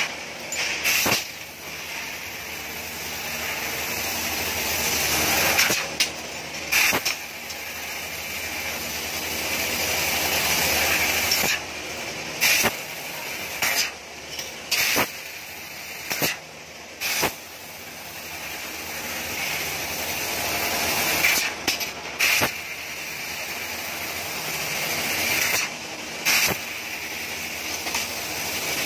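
CNC fiber laser cutting machine at work: the assist-gas jet hissing at the cutting head, building over stretches of several seconds and repeatedly breaking off and restarting with brief louder bursts between cuts.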